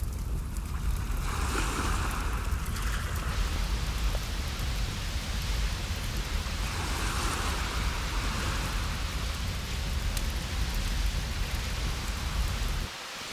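Surf on a beach: a steady hiss of waves washing ashore that swells about a second in and again about six seconds in, over a heavy rumble of wind on the microphone. The rumble cuts off abruptly near the end.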